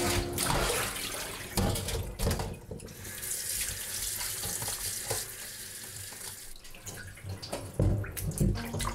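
Tap water running and splashing into a stainless steel sink while a raw leg of lamb is rinsed and rubbed by hand in a metal bowl. A steady stream holds from about three seconds in to about seven, and a few knocks of the meat being handled come near the end.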